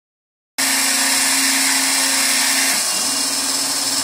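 Phlatprinter CNC foam cutter's spindle motor running steadily as it cuts a line through blue foam board, a loud whine with a hiss over it. It starts abruptly about half a second in, and its pitch dips briefly about three seconds in.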